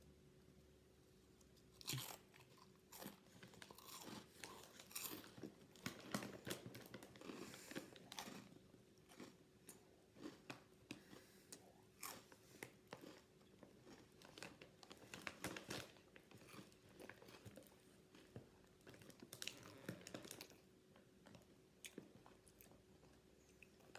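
A person bites into Cheez-It Crunch shredded white cheddar crackers and chews them, with crisp, irregular crunching. The first bite comes about two seconds in, and the chewing thins out near the end.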